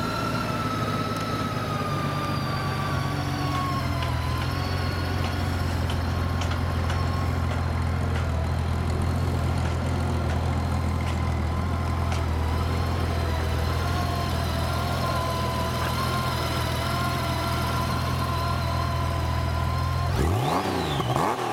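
Honda Gold Wing GL1800's flat-six engine idling smoothly and steadily, with a brief rise and fall in pitch near the end.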